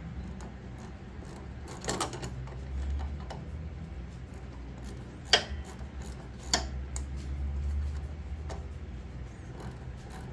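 Half-inch wrench working the locking nut on a Snapper rear-engine rider's deck pulley: a few scattered metallic clicks and knocks, the sharpest about five seconds in, over a low steady hum.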